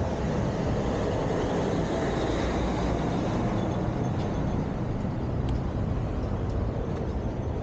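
Lime electric scooter rolling over a brick-paved sidewalk: a steady, even rumble of wheels and ride noise.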